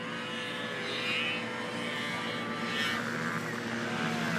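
Snowmobile engine running at speed, a steady whine that grows louder as the sled comes closer.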